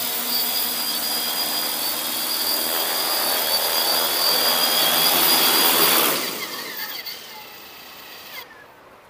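Large four-rotor agricultural spray drone coming in to land, its propellers whirring with a high motor whine and growing louder as it nears. About six seconds in, the motors cut on touchdown and the rotor noise winds down and fades away.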